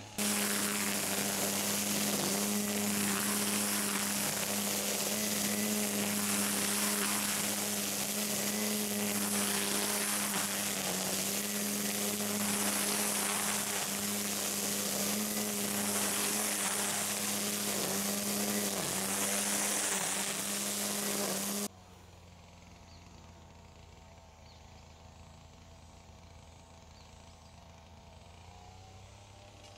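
Makita cordless string trimmer running steadily with a motor hum, its nylon cutting line whipping through grass, the pitch dipping briefly a few times. About 22 seconds in it cuts off abruptly to a faint, quiet background.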